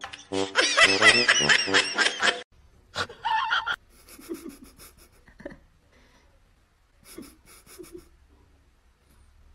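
Laughter, loud and rippling for about two and a half seconds, cut off abruptly, then a short loud burst about three seconds in and faint scattered sounds after.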